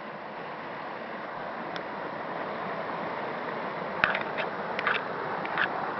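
Waterfall rushing as a steady noise, with a quick run of sharp clicks about four to five and a half seconds in.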